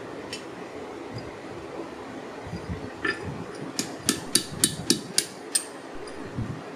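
A run of seven sharp metal-on-metal clinks, about three a second, from a hot rail spike held in blacksmith's tongs against two steel bending pins set in an anvil, with a single clink a little before them.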